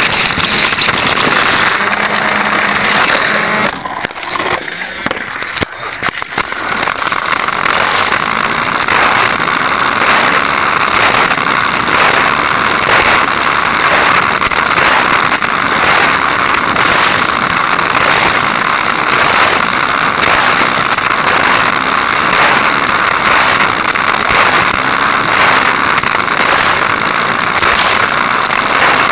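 Hot Wheels Sizzler toy car's small battery-powered electric motor and wheels running at speed, recorded by a keychain spycam riding on the car. The sound has a regular pulse and drops away for about two seconds roughly four seconds in, then comes back as loud as before.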